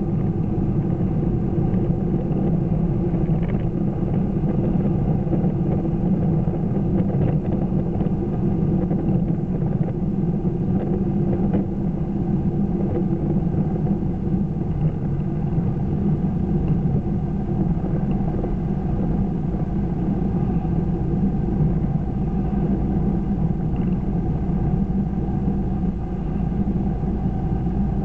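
Steady engine and tyre noise heard inside a car cruising at about 60 to 70 mph: an even low rumble with no sudden changes.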